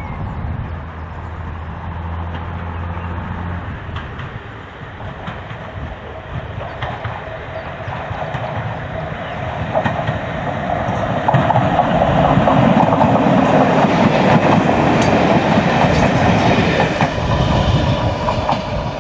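A first-generation diesel multiple unit approaching and passing close by. Its diesel engines drone on a steady low note at first, then the sound grows louder, with wheels clicking over the rail joints, and is loudest in the second half as the unit goes past.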